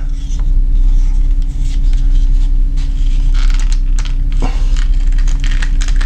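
A steady low hum with a constant tone running under it, over which come a few faint rustles and light clicks as a knife in a leather sheath is handled and set down on a table.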